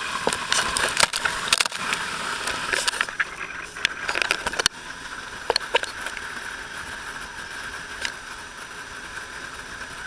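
Water spray and rushing water from a fast-moving small ferry boat hitting the camera, a dense crackling hiss with sharp splash clicks. The spray falls off suddenly about halfway through, leaving a quieter steady rush.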